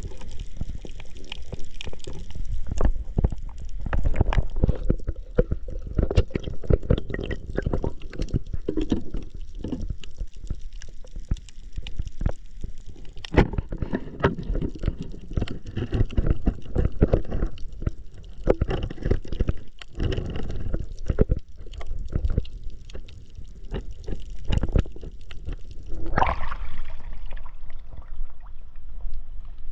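Water gurgling and sloshing around an underwater camera, with many irregular clicks and knocks. About 26 seconds in, the sound changes as the camera comes up at the surface.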